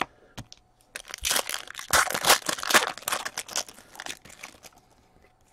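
A hockey card pack's wrapper crinkling and tearing as it is opened by hand, a dense run of crackles from about a second in until shortly before the end.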